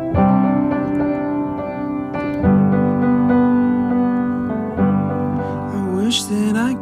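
Background music: a song's piano intro, sustained keyboard chords changing every couple of seconds, with a few sliding tones near the end.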